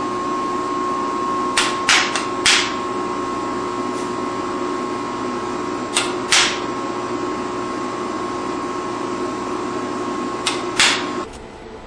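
Small hammer tapping a hand-held, freshly tempered knife blade to straighten it: sharp metallic knocks in pairs and threes a few seconds apart. Under them runs a steady mechanical hum with a faint whine, which cuts off shortly before the end.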